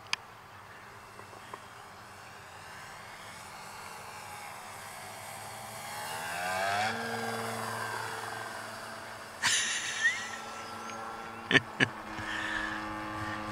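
Electric motor of a scratch-built Short Mussel model aircraft in flight, its loose bearing giving it an unusual running sound like a four-stroke engine. It grows louder and rises in pitch about six to seven seconds in, then holds steady. A short burst of noise and two sharp clicks come near the end.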